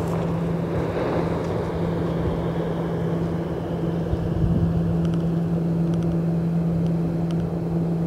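Steady engine drone, one constant low hum that does not change in pitch, over wind and open-air noise.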